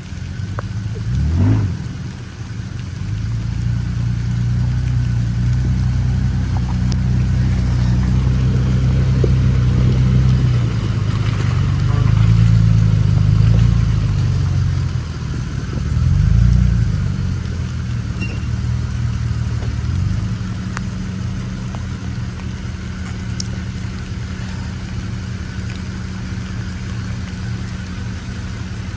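Truck engine running at low revs, swelling in a few brief revs about 1.5, 12 and 16 seconds in, then settling to a steadier run; an off-road truck working slowly over a muddy obstacle.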